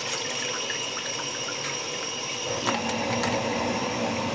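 Water trickling off an old submersible sump pump and its discharge pipe back into the sump pit as the pump is lifted out, with light clicks and a knock about two-thirds of the way through as the pump and pipe are handled.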